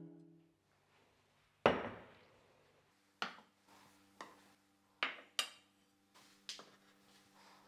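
Bowls and a plate being set down one after another on a wooden cutting board: a sharp knock about two seconds in, then five lighter knocks and clinks over the next few seconds. A guitar chord fades out at the start.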